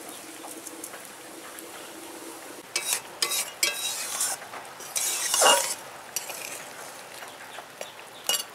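Tamarind crab curry simmering with a faint hiss in a steel karahi. A few seconds in, a stream of liquid is poured into the pan, loudest after about five seconds. Then a metal spatula stirs the pan, with a sharp scrape near the end.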